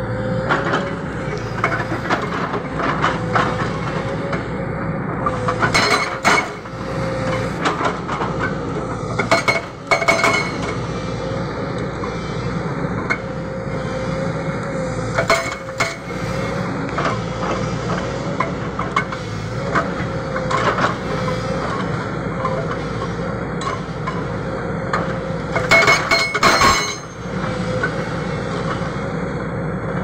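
Hydraulic rock breaker on a JCB 220 excavator hammering into rock, a steady mechanical racket over the running machine, with a few louder sharp clanks of steel and stone now and then.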